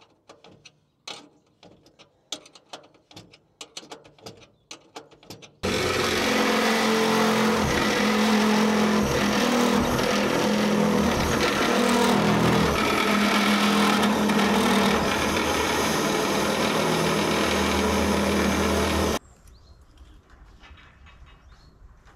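Cordless drill boring a hole through a steel roof sheet, running loud and steady for about thirteen seconds, starting and stopping abruptly. Before it come light metallic clicks as a spanner tightens an earthing-cable bolt on a solar mounting rail.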